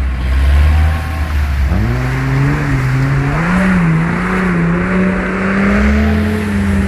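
Off-road vehicle's engine idling low, then revved up about two seconds in and held at high revs with a wavering pitch as the stuck vehicle tries to drive out, with a broad hiss alongside.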